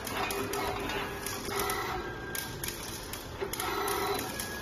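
Automatic screw-fastening machine running: its gantry axis motors and servo screwdriver whine in short repeated runs as the head moves from screw to screw.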